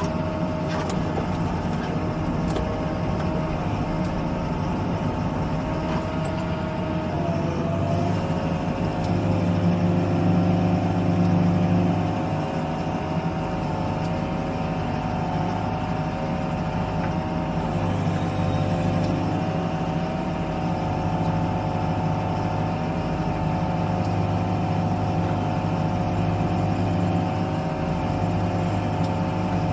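Excavator's diesel engine and hydraulics running steadily, heard from inside the cab as the boom works. The engine grows louder for a few seconds around ten seconds in, then settles back.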